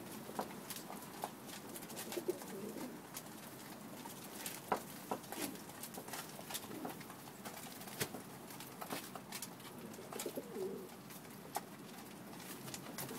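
Pakistani high flyer pigeons pecking grain from metal feeder trays, an irregular scatter of sharp clicks, with several low coos among them.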